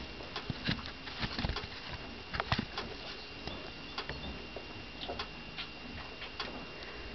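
Foal suckling at the mare's udder: irregular soft clicks and smacks, a few a second, over a steady background hiss.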